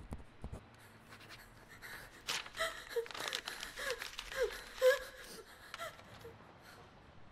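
A person sobbing: gasping breaths broken by a handful of short, wavering cries that dip in pitch, starting about two seconds in and dying away near the end.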